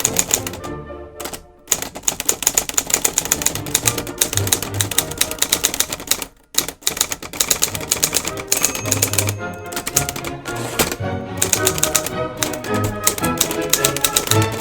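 Typewriter being typed on rapidly, a fast run of key strikes, over background music. The typing stops briefly about a second in and again a little past six seconds.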